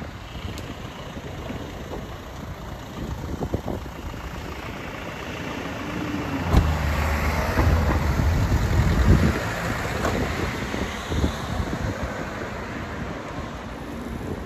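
Street noise of a motor vehicle going past, loudest a little past the middle, with a low rumble throughout.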